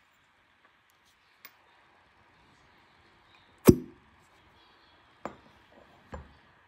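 Glass cupping cup with a blue rubber suction bulb coming off the skin of the palm with one sharp pop about halfway through, followed near the end by two lighter knocks of glass cups being handled.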